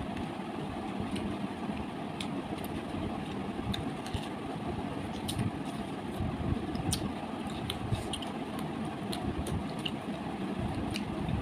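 Close-up eating sounds of fried fish, rice and raw green beans: scattered sharp crunches and mouth clicks from chewing, over a steady low background rumble.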